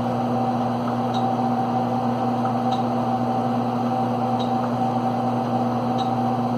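Steady machine hum of a running DEC PDP-12 minicomputer, with faint light ticks about every one and a half seconds.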